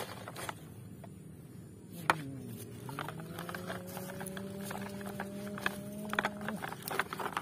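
Plastic toy dump truck knocking and clicking as it is handled and pushed over sandy ground: a sharp knock about two seconds in, then scattered clicks and taps. Behind it a steady hum dips in pitch, rises and holds for a few seconds, then stops abruptly.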